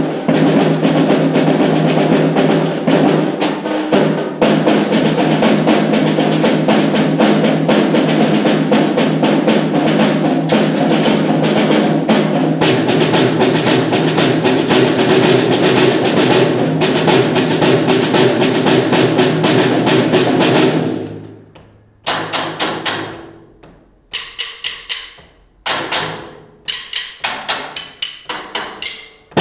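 Snare drum ensemble playing: dense, fast continuous drumming that fades away about twenty-one seconds in, then short groups of sharp strokes and clicks with brief silences between them.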